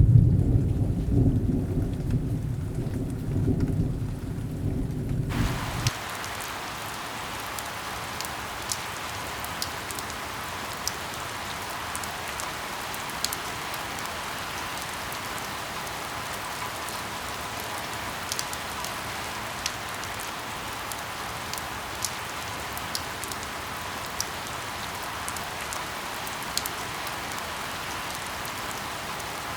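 A deep, loud rumble of rushing monsoon water for the first five or six seconds, then an abrupt switch to a steady hiss of falling rain with scattered sharp drip ticks.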